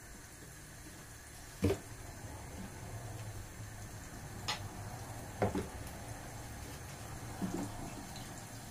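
Cooking oil heating in a pressure cooker and a frying pan on a gas stove, with a faint steady sizzle. Four light clicks and knocks of kitchen containers being handled, one of them a plastic container set down on the counter near the end.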